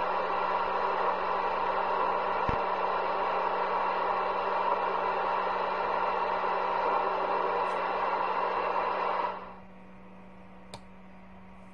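CB radio receiver hissing with a loud, even rush of static while a station keys down, then dropping to a quieter background hiss about nine seconds in when the transmission ends. A steady low hum runs underneath.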